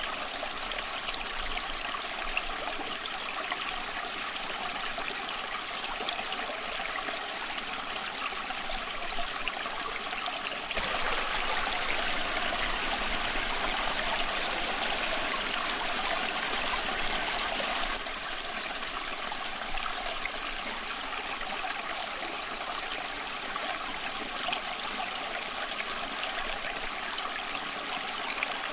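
Water of a small stream flowing and trickling steadily. For about seven seconds in the middle it is suddenly louder, then drops back just as abruptly.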